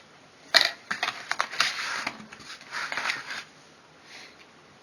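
Phone-box packaging crinkling and rustling as items are handled and lifted out, with a sharp crackle about half a second in, stopping after about three and a half seconds.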